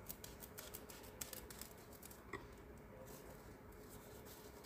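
Scissors cutting through a thin foam sheet: a faint run of quick, crisp snips.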